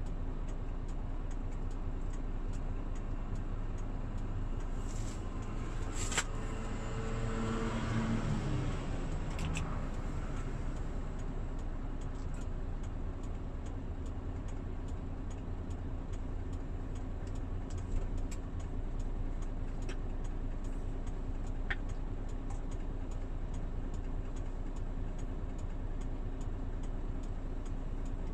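Hino Profia heavy truck's diesel engine running steadily on the road. About seven seconds in, the engine note falls in pitch for a couple of seconds. A few light clicks are heard.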